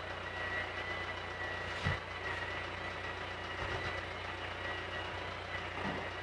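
Steady background hum with a thin, faint high whine running through it, and one soft knock about two seconds in.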